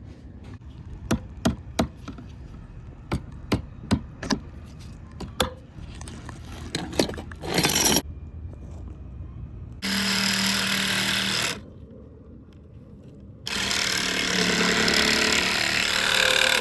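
A run of sharp knocks, then a power saw cutting in two loud runs of a couple of seconds each, its motor humming steadily under the noise of the cut.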